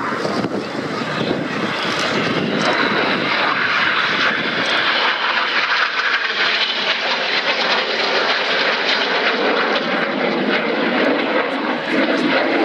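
Several BAE Hawk T1 jet trainers flying by in close formation, their Adour turbofan engines giving a steady, loud jet rush.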